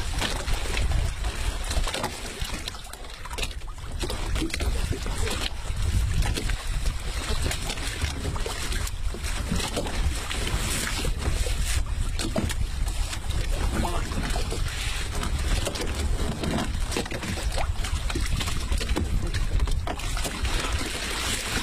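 Wind rumbling on the microphone over sea noise aboard a small open boat, with irregular knocks and scrapes against the hull as a line is hauled in over the side.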